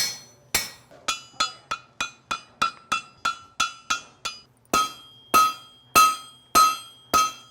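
Blacksmith's hammer striking steel on an anvil in a steady rhythm, each blow ringing with a clear metallic tone. Quick, lighter blows of about three a second give way about halfway through to slower, heavier blows a little over half a second apart.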